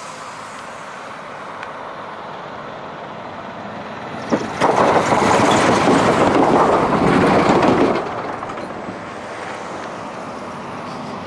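A heavy truck driving over a road grade crossing: a sharp bang about four seconds in as it hits the rails, then a loud rumble for about three and a half seconds as it crosses the tracks. Steady road traffic noise before and after.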